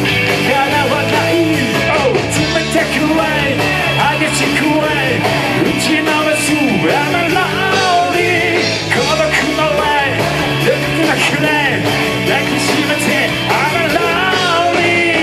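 Rock band playing live, with a lead line bending up and down in pitch over a steady, dense band sound.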